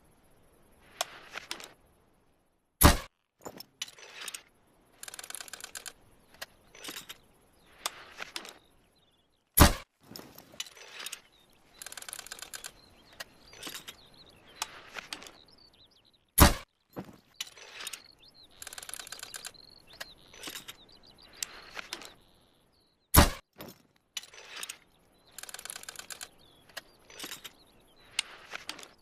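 Crosspoint CB-165 crossbow shot four times, each shot a single sharp snap, about seven seconds apart. Between shots come runs of clicks, rattles and scraping as the crossbow is cocked and loaded again.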